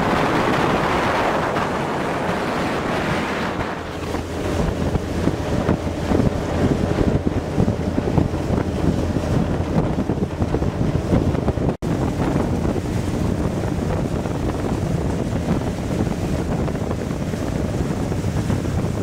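Passenger express boat under way at speed: steady engine rumble under rushing water from the wake, with heavy wind buffeting on the microphone. The sound cuts out for an instant about twelve seconds in.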